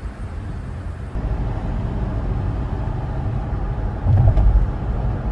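Road and engine noise of a moving car heard from inside the cabin: a steady low rumble that picks up about a second in and swells loudest about four seconds in.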